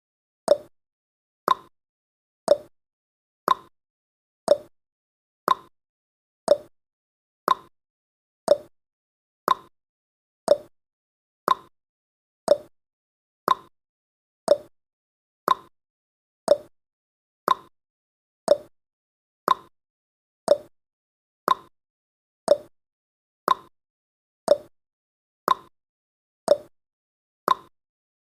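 Countdown timer's clock-tick sound effect: sharp tick-tock clicks about two a second, alternating a lower and a higher pitch, evenly paced.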